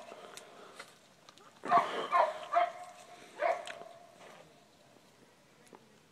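A dog barking: a quick run of about five short barks from about two seconds in to about three and a half seconds in.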